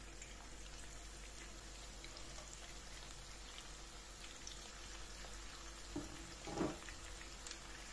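Oil sizzling softly with faint crackles as raw minced-meat köfte patties shallow-fry in a pan. A brief louder sound comes about six and a half seconds in.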